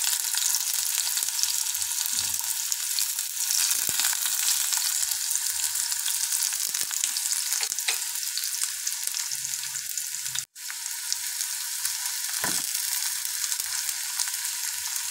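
Sliced onions frying in hot oil in a pan, a steady crackling sizzle, with a few light knocks as they are stirred. The sizzle cuts out for an instant about two-thirds of the way through.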